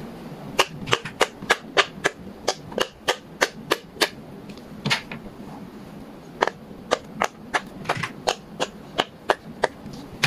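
Silicone push-pop bubble fidget toys (pop-its) being popped bubble by bubble with the fingers: a steady run of sharp little pops, about three a second, with a short pause about halfway through.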